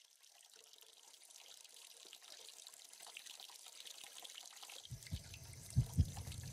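Trailer sound design: a trickling, dripping water sound fades in from silence and grows slowly louder. About five seconds in, deep heartbeat-like thuds join it, first a single beat and then a double beat.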